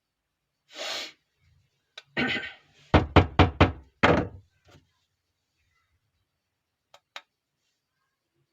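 Soap bars and their packaging being handled while unpacked: a short rustle, then a quick run of about five sharp knocks around three seconds in, a few softer taps, and two light clicks near the end.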